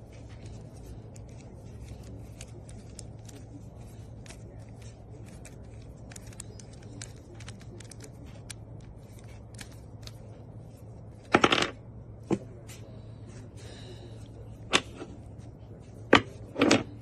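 Articulated camera magic arm and super clamp being handled and adjusted: a run of light clicks and ticks, then a few louder knocks and clatters in the last third, over a steady low hum.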